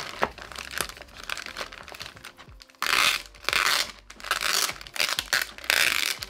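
Clear plastic packaging bags crinkling and rustling as accessories are handled and unpacked, with four louder, longer stretches of rustling plastic in the second half.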